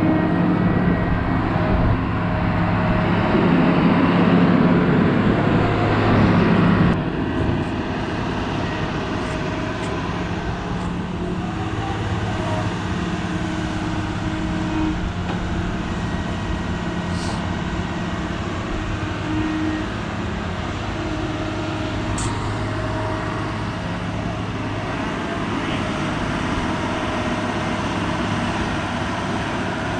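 Excavator's diesel engine running steadily, louder and busier for the first seven seconds, then dropping off suddenly to a steadier, quieter run.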